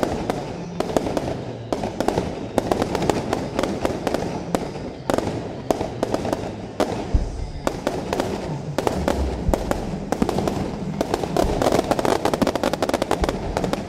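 Fireworks display: a rapid, continuous series of bangs and crackling from bursting aerial shells, growing denser near the end, with music playing underneath.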